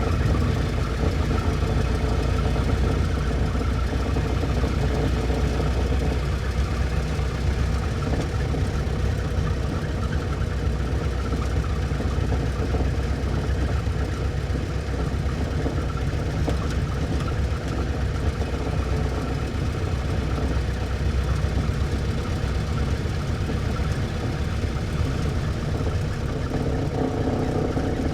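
1924 Ford Model T's four-cylinder flathead engine running steadily with a fast, even chugging beat, at an unchanging speed.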